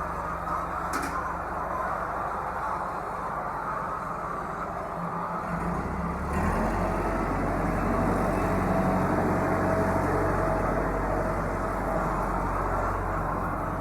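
Steady mechanical hum with a constant rushing noise; the low hum gets deeper and stronger about six seconds in.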